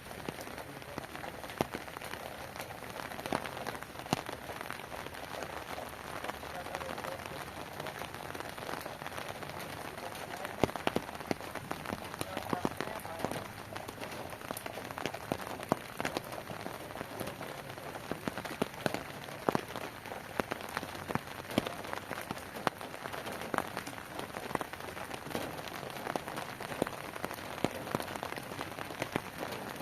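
Heavy rain falling steadily, with many sharp individual drop impacts heard through it.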